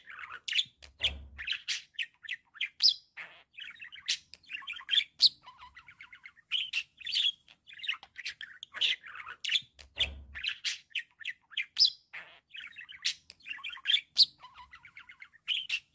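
Male budgerigar warbling: a continuous chatter of quick chirps, clicks and squeaky notes.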